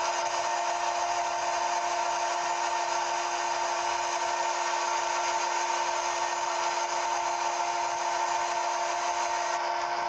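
CNC machine running steadily: a constant motor whine in several steady pitches over an even hiss, typical of a spindle cutting.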